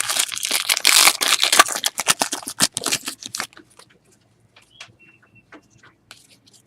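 Foil wrapper of a trading-card pack crinkling and tearing for about three and a half seconds, then only a few faint clicks as the cards are handled.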